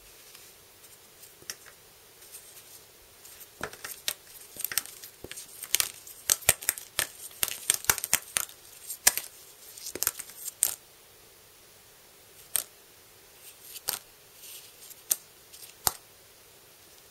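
Small stiff game cards being thumbed through in the hand, each card flicking off the next with a short sharp snap. A quick run of flicks fills the middle, then a few single flicks come spaced out toward the end.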